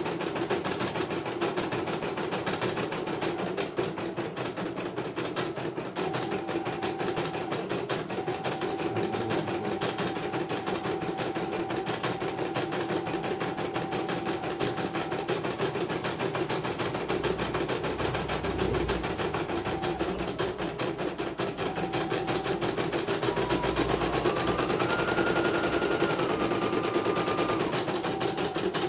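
CNY portable computerized embroidery machine stitching a design: a fast, even clatter of needle strokes under a steady motor hum. Near the end a higher whine steps up in pitch and back down.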